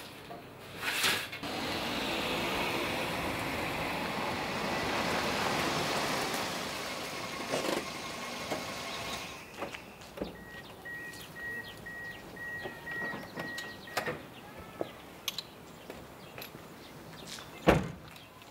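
A car's engine runs for several seconds. Then the car's electronic warning chime beeps in a steady series for about four seconds, and a car door shuts with a thump near the end.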